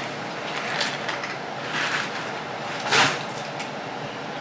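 Kitchen handling noises: a few brief noises about one, two and three seconds in, the third the loudest, over a steady hiss.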